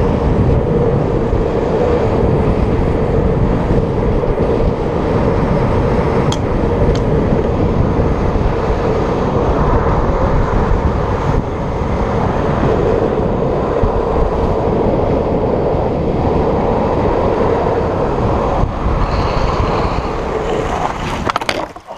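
Longboard wheels rolling fast on asphalt with a steady rumble, mixed with wind on the microphone. Near the end a few sharp knocks are heard and the noise drops off suddenly.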